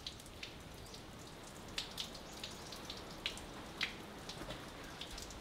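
Hot water poured from a saucepan onto a towel draped over a pig carcass, soaking in and dripping with scattered soft ticks. This is the scalding douse that loosens the hair for scraping.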